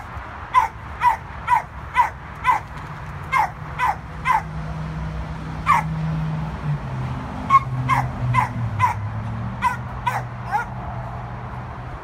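A dog barking repeatedly in short, sharp barks, about two a second, in two runs with a pause near the middle.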